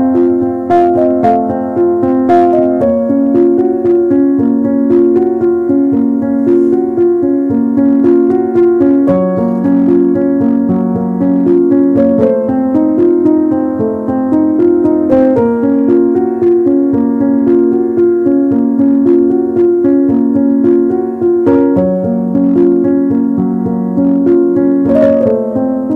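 Background piano music: a steady, repeating pattern of notes and chords.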